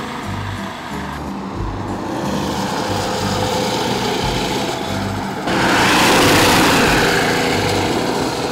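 Small engine of an off-road Murray Kilowatt go-kart running as the kart is driven over gravel, under background music with a bass line. The engine and gravel noise get louder about five and a half seconds in.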